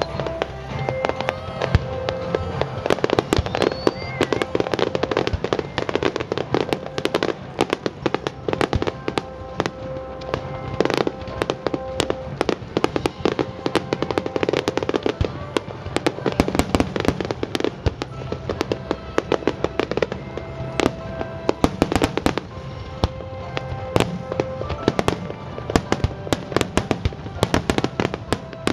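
Fireworks finale barrage: a dense, unbroken run of bursts and crackling reports, several each second, with music playing underneath.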